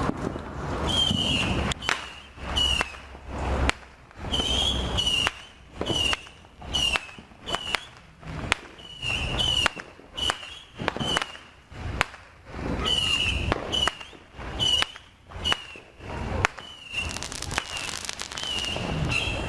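New Year's Eve firecrackers and fireworks going off all around in irregular sharp bangs, about one or two a second, with a short high chirp recurring between them.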